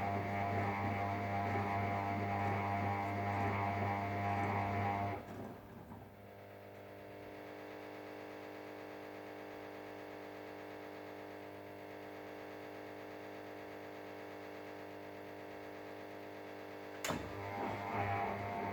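Ariston Margherita washing machine's drum motor turning the drum on the main wash, with a steady whine and hum. It stops about five seconds in, leaving a quieter steady hum. A sharp click comes near the end, and the motor starts turning the drum again.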